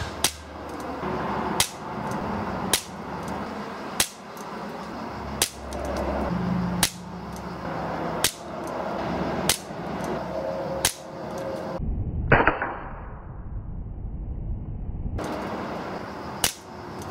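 Beretta PX4 CO2 air pistol firing .177 pellets in a steady string: about eleven sharp shots, roughly one every second and a quarter. The loudest shot, about three-quarters of the way through, sounds duller, with its high end cut off.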